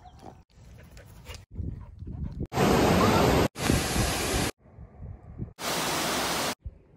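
A string of one-second clips cut hard one after another. Several of them hold the loud, steady rush of a waterfall, including one about halfway through and one near the end. The clips between are quieter outdoor sounds.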